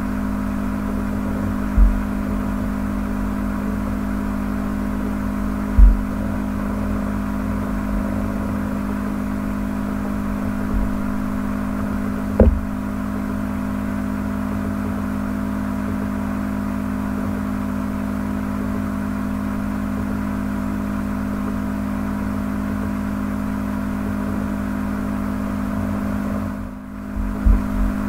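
Steady, even mechanical hum, with a few short dull thumps in the first half, the loudest about six seconds in.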